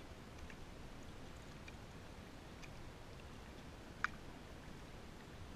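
Quiet ambience around a drifting kayak on a slow river: a faint low rumble with small water ticks, and one sharp click about four seconds in.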